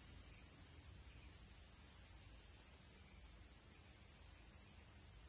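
Steady, high-pitched chorus of insects singing in the woods, over a faint low rumble.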